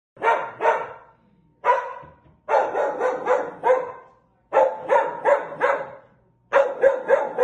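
A dog barking repeatedly in quick runs of two to four barks, with short pauses between the runs.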